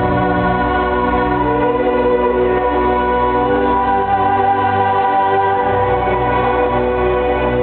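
Hardstyle show-opening music over a large arena sound system: held, organ-like synth chords over a deep bass, with no clear beat.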